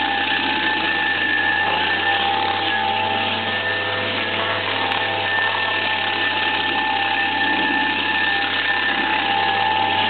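Tractor-mounted homemade stump grinder cutting into a stump: the tractor engine runs steadily under load beneath a steady whine from the spinning cutter wheel and a dense rush of noise.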